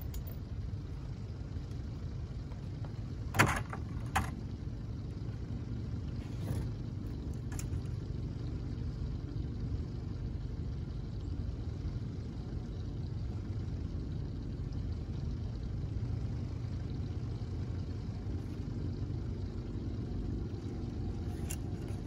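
Steady low rumble of an idling boat outboard motor, with two sharp knocks about three and a half and four seconds in.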